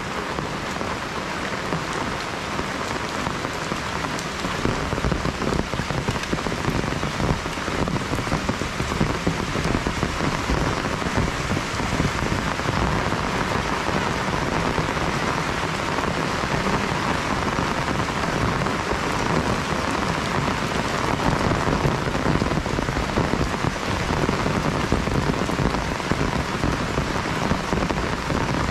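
Heavy rain falling steadily, a dense even hiss with close drops spattering throughout.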